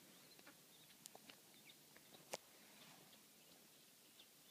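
Two-day-old puppies suckling: faint wet clicks with a few tiny high squeaks, and one sharper click a little past two seconds in.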